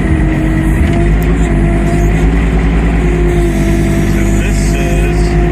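Typhon Flex 18 mini excavator's engine running steadily at a constant speed, heard close from the operator's seat.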